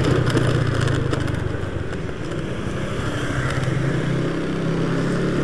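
Automatic scooter's small engine running steadily while riding along. It eases off briefly about two seconds in, then picks up again.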